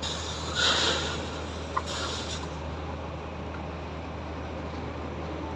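Heavy engine of site machinery running steadily with a low drone, with two short bursts of hiss in the first half and a sharp click between them.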